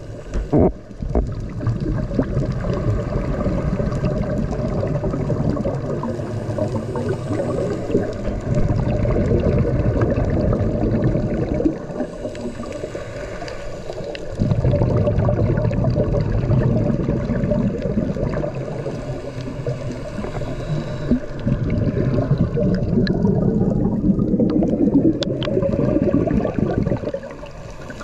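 Underwater sound of a scuba dive: a steady bubbling, gurgling rush of a diver's regulator exhaust bubbles and water noise, easing off briefly twice.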